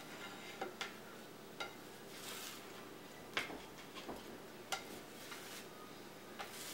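Plastic slotted spatula stirring scrambled eggs in a skillet, scraping and tapping against the pan. It is faint, with a few light clicks spread through.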